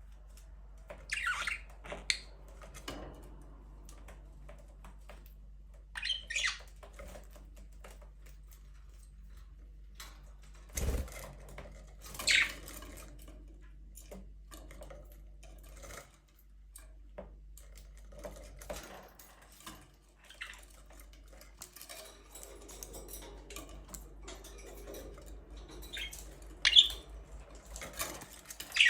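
Budgerigars giving short, scattered chirps and squawks, a handful in all, with small clicks and scratches between them and a low thump about eleven seconds in.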